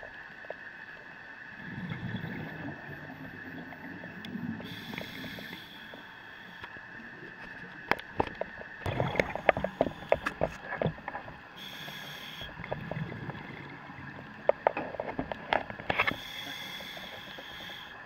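Underwater recording of a scuba diver breathing through a regulator: bursts of hissing about every five or six seconds and low bubbling rumbles from exhaled bubbles. Runs of sharp clicks and knocks come near the middle and again near the end.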